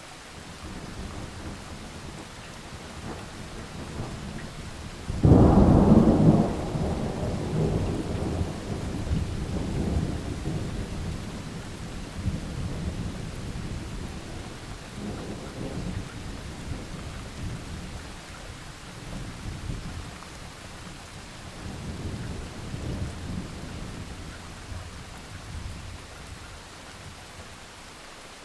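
Thunderstorm: steady rain with thunder. A low rumble builds in the first seconds, and a sharp, loud clap comes about five seconds in. It is followed by long rolling rumbles that swell and fade several times.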